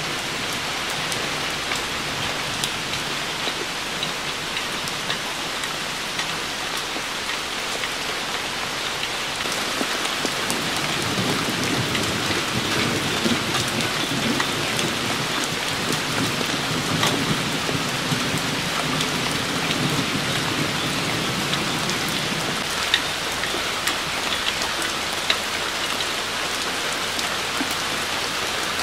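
Steady rain falling on wet pavement, a puddle and leafy plants, with a low rumble of thunder through the middle and a couple of sharper close drop hits near the end.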